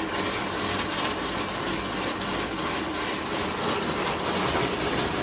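A machine running steadily with a dense rattling clatter.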